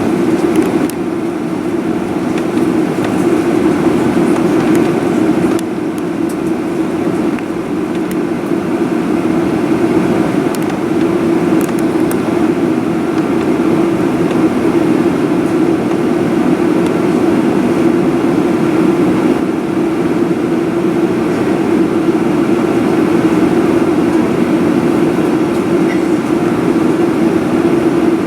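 Steady cabin noise inside a Boeing 737-900ER as it taxis, with the CFM56-7B turbofan engines at low thrust giving a constant low hum. The level holds even throughout, with no build-up to takeoff power.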